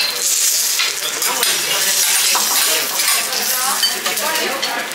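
Vegetables sizzling on a hot steel teppanyaki griddle, a steady hiss, with scattered clicks and scrapes of a metal spatula against the plate.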